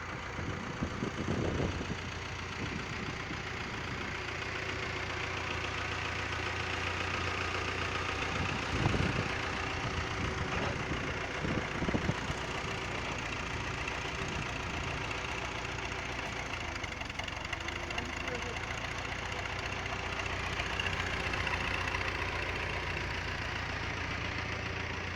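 Hyster forklift engine running steadily, with a few short knocks near the start and again about nine and twelve seconds in.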